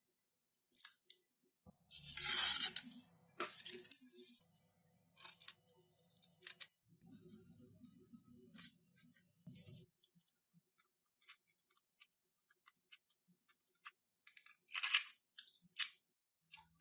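Small hand-work noises while building a foam model plane: scattered clicks and taps, with a few short scraping or rustling bursts. The loudest bursts come about two seconds in and again near the end.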